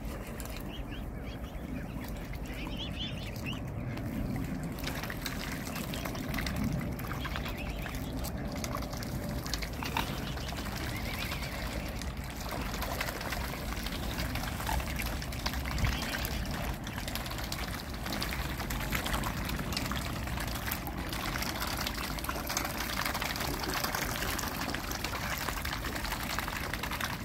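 Water splashing and dribbling as a swan and its cygnets dabble and feed in the shallows, a steady wash of small splashes.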